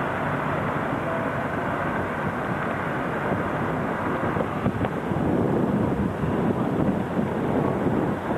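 Steady rushing of wind and road noise picked up by a camera carried on a moving bicycle, growing louder about five seconds in.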